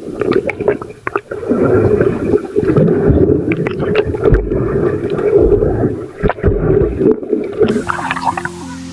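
Muffled water sloshing and bubbling against a camera in a waterproof case, with scattered knocks. Background music comes in near the end.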